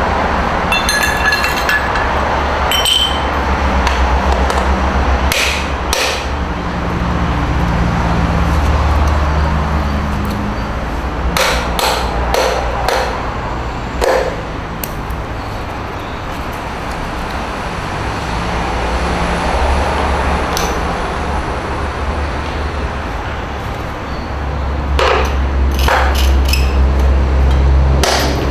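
Broken pieces of a porcelain sink being knocked and handled on a concrete floor: scattered sharp strikes and ringing clinks, with a run of several strikes near the end, over a steady low rumble.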